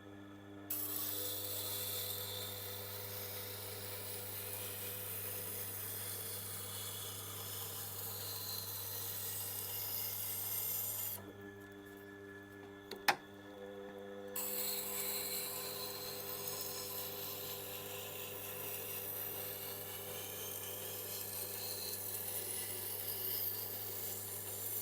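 A knife's steel edge grinding on a Tormek T8's slow-turning wet stone wheel, a steady rasping hiss over the machine's motor hum, as a burr is being raised on the wheel dressed to about 1000 grit. The grinding stops for about three seconds midway, leaving the hum and a single click, then resumes.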